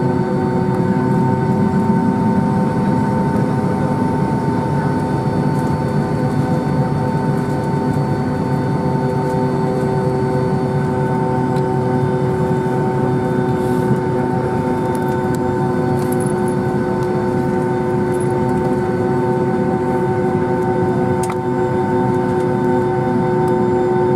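Boeing 757-200's jet engines heard from inside the cabin while taxiing at low power: a steady whine of several held tones over a low rumble.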